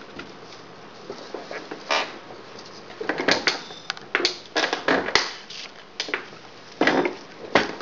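Mini-lop rabbit crunching popcorn: irregular crisp crunches, sparse at first and coming thick from about three seconds in.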